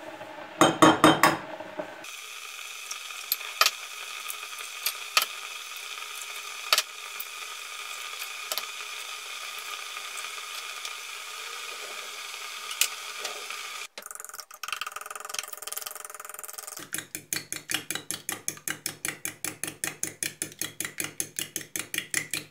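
A brief clatter about a second in, then eggs cracked one at a time on the rim of a glass bowl: about five sharp taps a second or two apart over a faint steady hum. Later, a fork whisks the eggs in the glass bowl, a fast even clinking of about six strokes a second.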